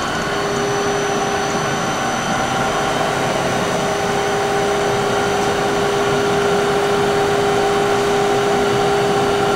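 SMTW H163 plain cylindrical grinder running, heard at its wheel head: a steady machine hum with a few held tones, mostly the fan of the 15 HP grinding-wheel motor.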